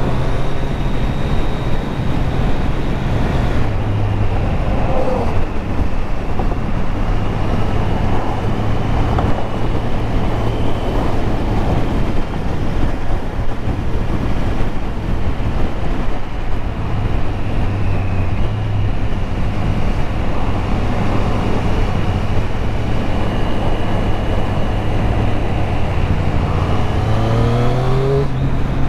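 Triumph Street Triple RS three-cylinder engine running under way at road speed, heard from inside the rider's helmet with steady wind rush. The engine note shifts a few times and rises near the end as the bike accelerates.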